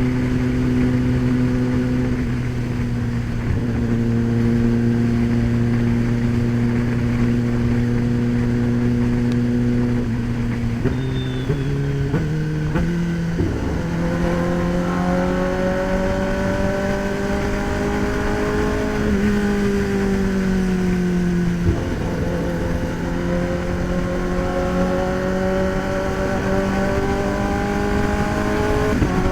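Kawasaki ZX-10R's inline-four engine under way: a steady note for about ten seconds, a few quick pitch steps from gear changes, then revs climbing, dropping off about two-thirds through, and climbing again, with another shift near the end.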